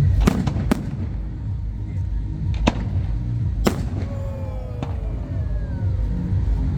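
Fireworks going off: about six sharp bangs spread irregularly over a steady low rumble of bursting shells.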